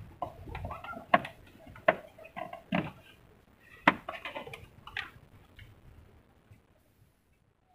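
A spinning reel and rod being handled in a wooden boat: about five sharp clicks and knocks over the first five seconds, the loudest near two and four seconds in, with fainter small rattles between.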